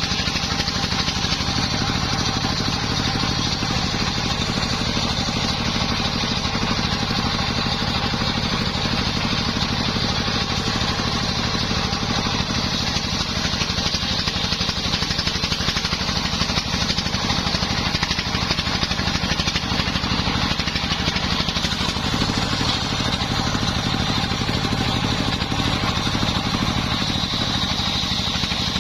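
Small engine driving a homemade circular saw bench, running steadily at an even speed.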